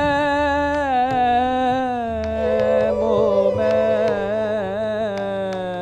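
Sikh kirtan: bowed fretted string instruments and a singing voice carry one slow, drawn-out melodic line over light tabla strokes. The line slides gradually down in pitch, then wavers in an ornament.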